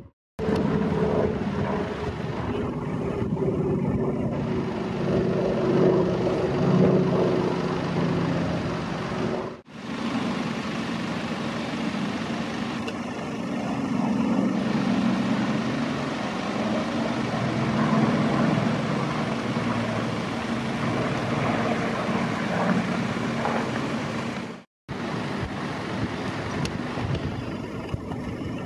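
Piston engines of two light propeller aircraft flying overhead, a steady drone whose pitch drifts up and down as they pass. The sound breaks off for a moment about ten seconds in and again near the end.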